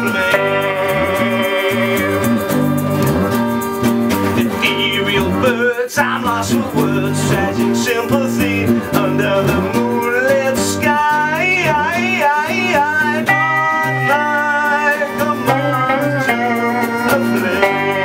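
A band playing live: guitar and melodica, with a voice singing over them.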